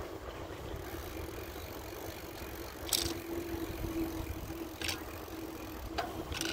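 Bicycle riding along a paved path: a steady low rumble of tyres and wind with a steady hum, and a few sharp rattles, the loudest about three seconds in.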